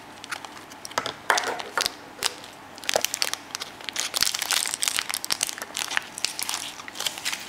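Thin clear plastic bag crinkling as fingers handle and open it, with irregular crackles throughout.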